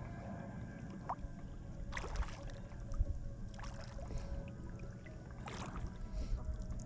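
Kayak paddle strokes: the blades of a double-bladed paddle dipping and splashing in the river about every two seconds, three strokes in all, over a low steady rumble.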